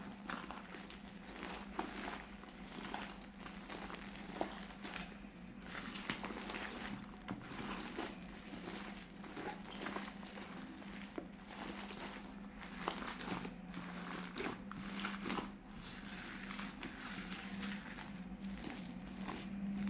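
Fluffy slime being squeezed and stretched by hand, giving a run of irregular crackling, crinkling pops.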